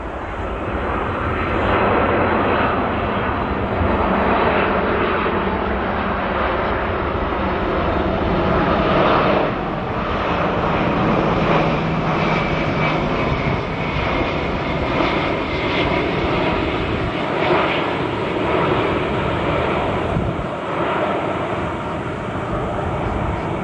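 Airbus A320-232's twin IAE V2500 turbofan engines at approach power as the airliner comes in to land: a loud, steady jet rush with a faint whine. It swells over the first two seconds, then holds loud with slow rises and dips.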